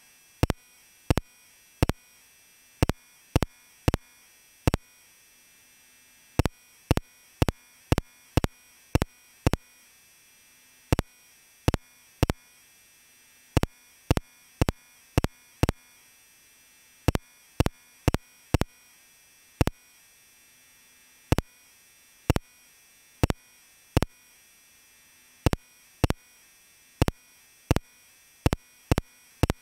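A string of sharp, single clicks at an uneven pace, about one or two a second, with near silence between them.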